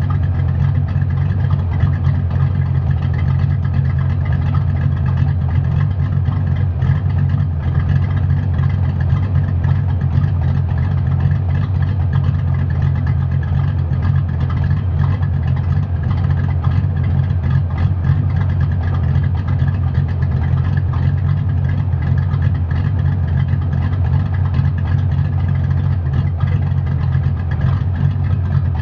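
1992 Ford Mustang LX's 5.0 V8 with an F-303 camshaft, idling steadily through a Mac exhaust with no tailpipes.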